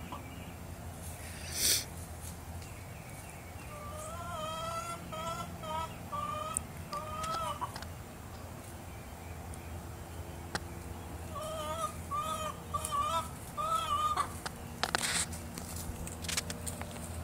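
A hen clucking: short pitched calls in two runs, from about four to seven seconds in and again from about eleven to fourteen seconds in. A brief loud burst of noise comes about two seconds in, and a few sharp clicks and scratchy noises come near the end.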